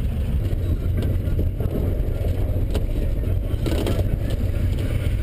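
A minibus taxi in motion, heard from inside the cabin: a steady low rumble of engine and road, with a few sharp rattles of the body about halfway through.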